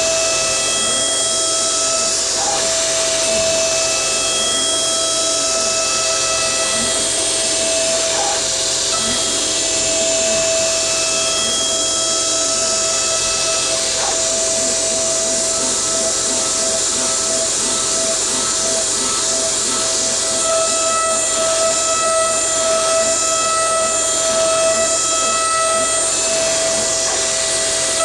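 DIY CNC router milling, its spindle running steadily while the axis motors whine up and down in pitch as the tool sweeps back and forth, about every two seconds, then faster and shorter passes in the second half.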